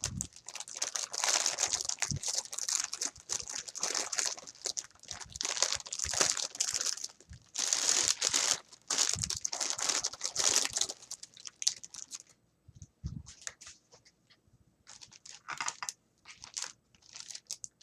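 Packaging being crinkled and unwrapped by hand: dense rustling full of small crackles for about eleven seconds, then sparser, shorter rustles with quiet gaps between them.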